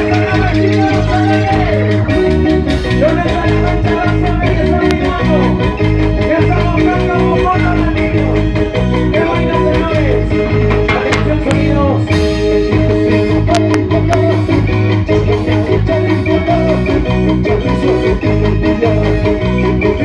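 Live band playing a lively dance tune through a PA, with electric guitar over drums and timbales.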